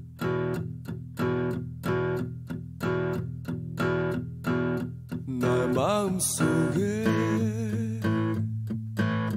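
Song opening with guitar chords struck in a steady rhythm about twice a second; a singing voice comes in about halfway through.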